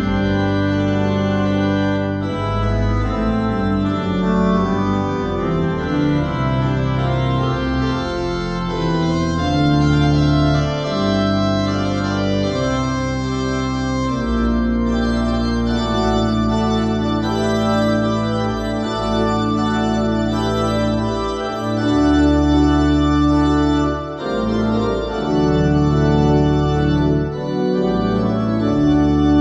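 Church organ played in sustained chords over deep held bass notes that change slowly, with a brief drop in the sound about three-quarters of the way through.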